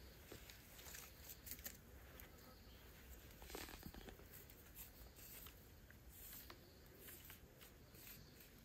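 Faint rustling and light scratchy clicks of hands handling thin sticks and vine bindings on a small stick-frame trap, in scattered short bursts.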